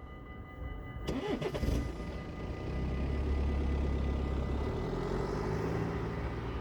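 Road vehicle engines pulling away and driving across the level crossing, a low rumble building from about two and a half seconds in. Steady high tones stop about a second in.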